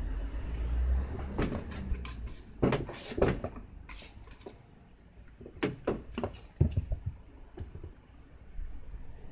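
Kitten pouncing at a toy mouse on a string against a wooden door: quick flurries of knocks and taps as its paws strike the door and land on the floor, several times over.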